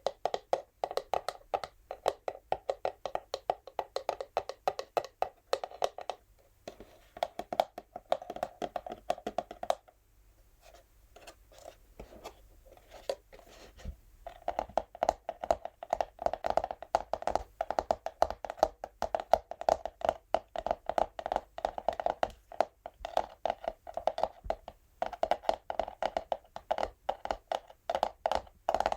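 Natural fingernails tapping rapidly on an empty textured cardboard box, a fast patter of hollow clicks. It thins out to sparser, quieter taps for a few seconds about a third of the way through, then picks back up.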